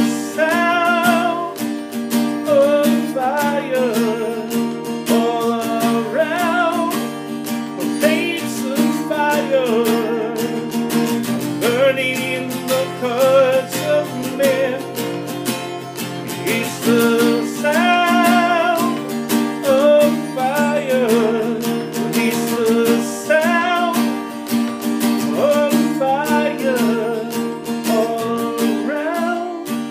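A song: a voice singing a melody with vibrato over a strummed acoustic guitar.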